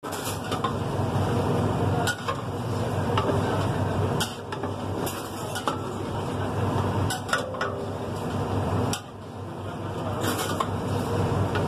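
Wooden spatula stirring thick curry gravy in a large aluminium pot, scraping through the gravy and now and then knocking against the pot's side, over a steady low hum.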